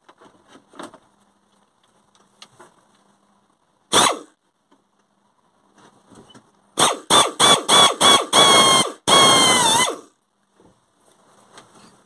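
Cordless drill revved in a quick string of short trigger pulses, then run twice for longer with a steady whine that sags in pitch at the end, drilling a hole in the backhoe cab's plastic dash panel to mount a switch. A single sharp knock comes about four seconds in.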